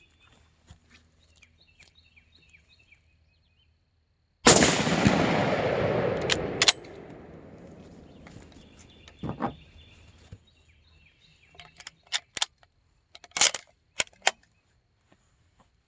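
A single loud rifle shot from a 1917 Winchester .30-06 rifle, about four and a half seconds in, with an echo that dies away over about two seconds. A few sharp clicks and knocks follow later.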